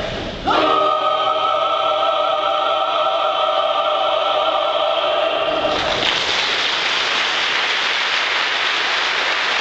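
Mixed choir holds a loud final chord, sustained and unchanging, which it releases about six seconds in. The audience then breaks into steady applause.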